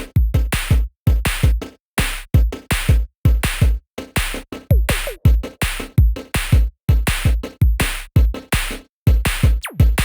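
Electronic music: a drum machine beat with heavy kick drums and sharp hits in a regular, stop-start rhythm, with falling synth sweeps near the end.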